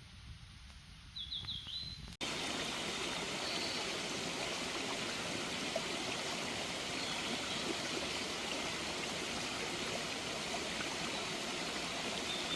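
Mountain valley stream running steadily, cutting in abruptly about two seconds in. Before it, in a quieter stretch, a bird gives a short run of high chirps.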